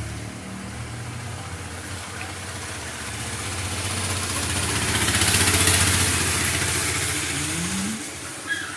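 A motor vehicle's engine passing close by, growing louder to a peak about five and a half seconds in, then fading away.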